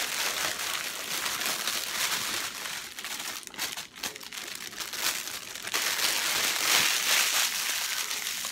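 Clear plastic bag crinkling as hands dig through it and shake out dozens of small sealed plastic packets of diamond-painting drills, continuous crinkling that is loudest in the second half.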